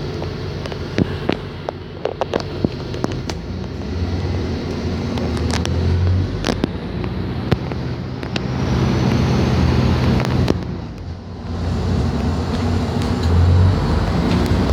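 Inside a moving bus: the engine runs with road noise, its note swelling and easing a few times, with short clicks and rattles from the cabin fittings.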